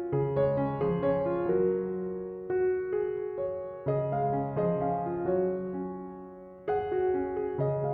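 Background piano music, soft and slow, with notes and chords struck and left to ring out.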